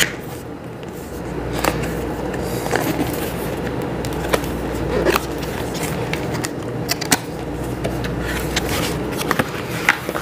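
Cardboard and foam gimbal packaging being handled: scattered light clicks, taps and short scrapes at irregular intervals over a steady low hum.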